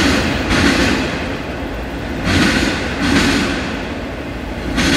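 Freight train of autorack cars rolling past, wheels clacking in pairs over a rail joint about every two and a half seconds, over a steady rumble.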